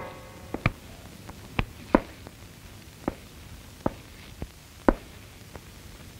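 Slow, cautious footsteps on a hard floor: single sharp taps spaced about a second apart, irregularly, over a quiet background.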